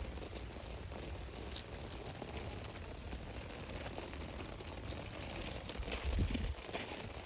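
Light rain falling in woodland, a steady hiss with scattered sharp drips and ticks. A low rumble runs under it, with a louder low thump about six seconds in.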